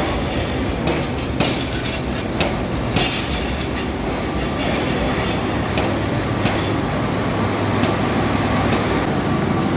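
Train running along the rails: a steady rumble and hiss, with sharp clacks of the wheels over rail joints at uneven intervals.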